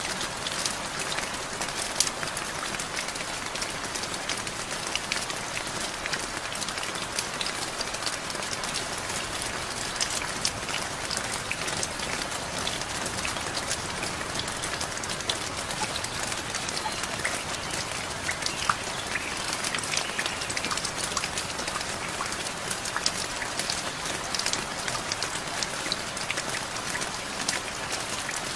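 Steady rainfall: a continuous hiss with many separate drop hits ticking through it.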